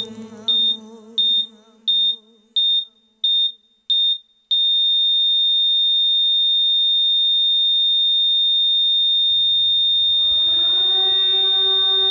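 A song fades out under a high electronic monitor beep. The beep sounds seven times about two-thirds of a second apart, then holds as one unbroken flatline tone. About nine and a half seconds in, a civil-defence siren winds up, rising in pitch and then holding steady.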